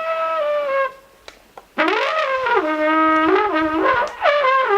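Trembita, the long Hutsul wooden horn of spruce wrapped in birch bark, being blown. A held note ends about a second in. After a short pause a longer call swoops up and steps down between several notes, and another note starts near the end.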